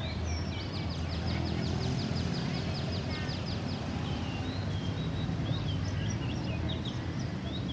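Small birds calling: a fast, even run of high repeated notes, about seven a second, lasts for about three seconds. Scattered chirps follow, over a steady low rumble.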